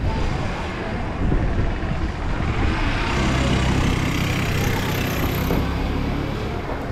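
A motor vehicle passing close by. Its engine drone and tyre noise swell from about halfway in, peak, then ease off near the end.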